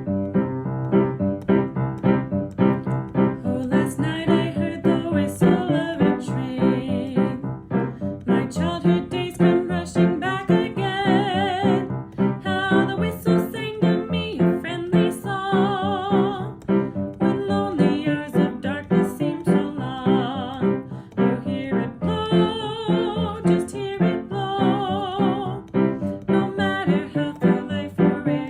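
Piano or electric keyboard music, steady chords with a melody line above that wavers in vibrato.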